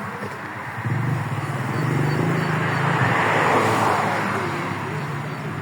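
A motor vehicle going by: a steady low engine hum starting about a second in, with a swell of road noise that peaks a little past halfway and then fades.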